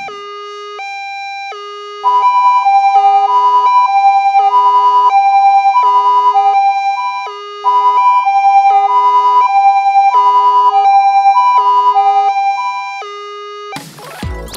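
Two-tone ambulance siren going back and forth between a low and a high note, switching a little under twice a second. About two seconds in, a louder, fluttering higher pair of tones joins it in the same rhythm, breaks off briefly about halfway, then returns. It all stops shortly before the end.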